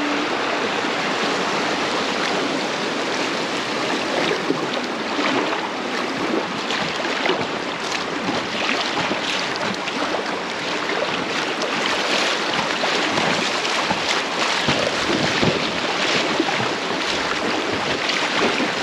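River water rushing and splashing around a packraft in a shallow stretch, with frequent short splashes.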